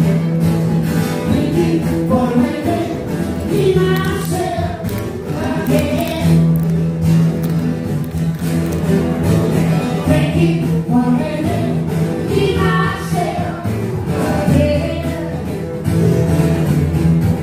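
Live band music: a singer over acoustic guitar with a steady beat.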